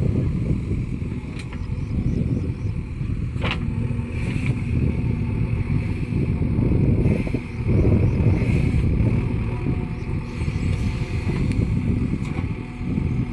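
JCB 3DX backhoe loader's diesel engine running steadily under load while dozing sand, a dense rumble that swells and eases. A single sharp clank comes about three and a half seconds in.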